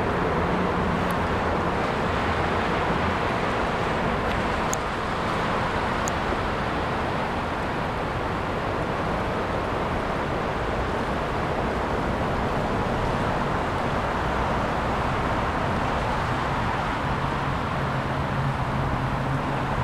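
Steady road traffic noise from vehicles crossing a large suspension bridge, with a couple of faint ticks about five and six seconds in.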